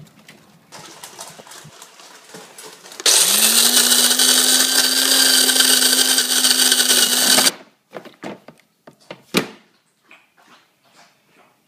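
Electric coffee grinder motor running for about four and a half seconds, spinning up quickly to a steady high whir and stopping abruptly. A sharp click follows a couple of seconds later.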